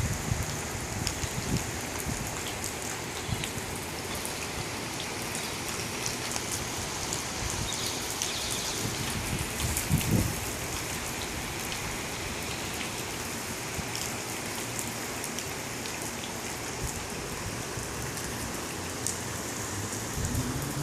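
Steady rain falling, with a constant hiss and scattered sharp ticks of drops striking hard surfaces. A brief low thump about halfway through is the loudest moment.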